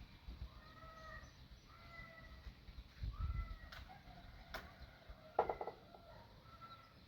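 Birds giving short repeated calls throughout, over a low rumble. A few sharp clicks come midway, and the loudest moment is a quick rattle of knocks about five seconds in.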